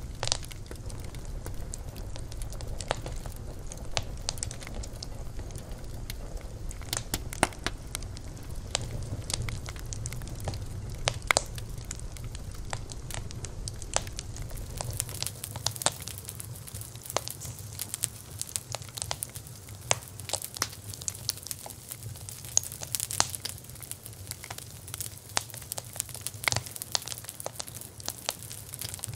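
Wood fire crackling, with frequent irregular sharp pops and snaps over a steady hiss. A low rumble under it drops away about halfway through.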